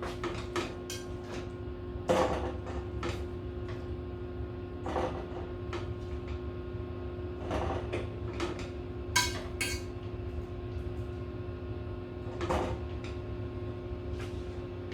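Scattered clinks and knocks of a metal utensil against a Saladmaster stainless steel pot and a bowl as cooked chicken drumsticks are lifted out one by one, over a steady low hum.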